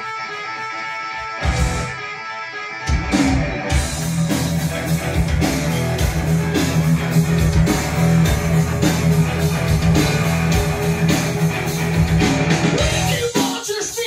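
Guitar-led rock music. It is sparse for the first three seconds, then the full band with drums comes in and carries on steadily.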